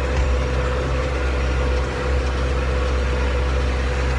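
100-horsepower Valtra tractor's engine running steadily while pulling a hay baler in the field, with a steady mid-pitched whine over the low engine hum.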